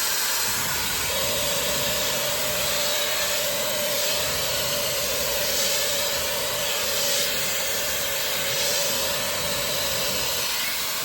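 High-speed brushless hair dryer running on its second speed, a steady rush of air with a steady whine that joins about a second in.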